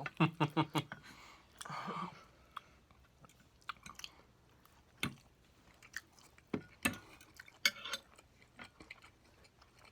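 Close-up sound of a person chewing food, with a quick run of crisp clicks in the first second and scattered smacks and clicks after.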